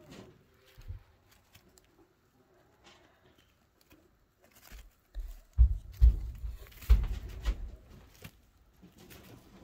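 Close handling noise from chinchillas being held and moving about: small scratches and clicks at first, then from about five seconds in a run of dull low thumps and rustles.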